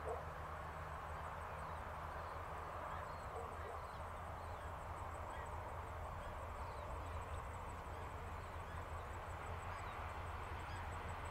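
Faint, steady low rumble of a distant DXR-class diesel locomotive hauling a passenger train, heard across open country. A few small bird chirps and a fast, high, regular ticking sit over it.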